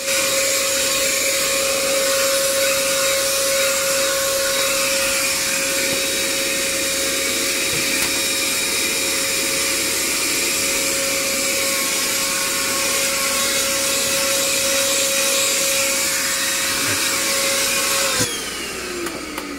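Handheld vacuum cleaner running steadily with a constant whine, then switched off about eighteen seconds in, its pitch falling as the motor spins down.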